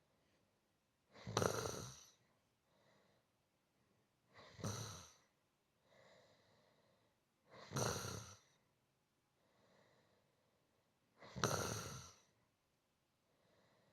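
A person snoring softly and evenly: four snores about three to four seconds apart, each under a second long, with fainter breaths between them.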